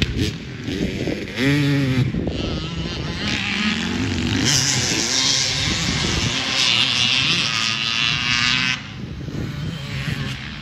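Dirt bike engines revving up and down, heard from a distance. A strong hiss comes in about halfway through and cuts off near the end.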